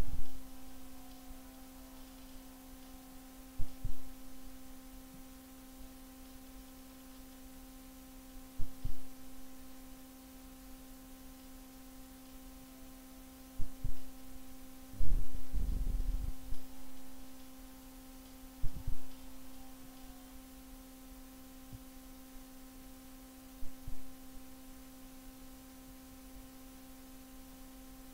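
A steady electrical hum, with dull low thumps, mostly in pairs, recurring about every five seconds; the longest and loudest cluster of thumps comes about halfway through.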